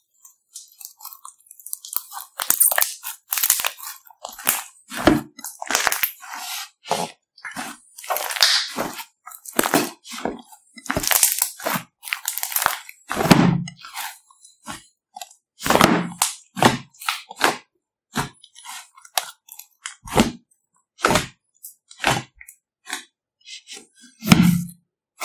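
Fluffy slime being squeezed, folded and stretched by hand in a glass bowl: irregular crackling pops and squelches, with a few deeper, heavier squelches about 5, 13, 16 and 24 seconds in.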